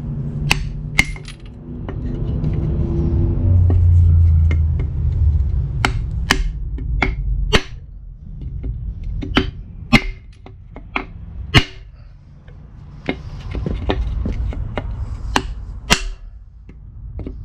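Hammer striking steel, a string of sharp metallic blows a second or so apart, knocking bolts and caps loose in a rusted Ford 360 FE engine block. A low rumble runs under the first few seconds.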